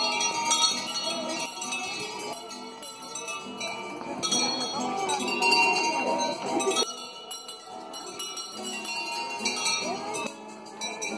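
Bells ringing continuously, many overlapping high metallic tones, with the voices of a walking crowd underneath.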